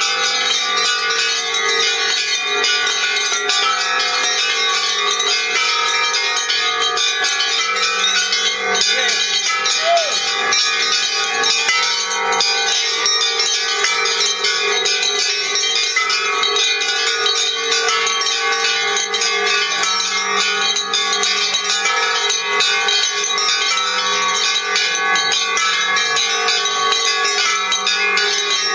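Many bells rung together by a group, their overlapping ringing tones forming a dense, unbroken wash with strikes coming constantly and no pause.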